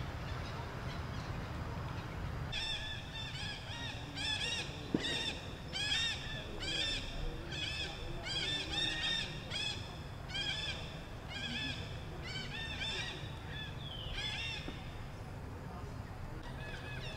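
A rapid run of short, high, arching animal calls, about two a second and sometimes overlapping as if from several animals, starting a couple of seconds in and stopping near the end, over a steady low background rumble. A single sharp click sounds about five seconds in.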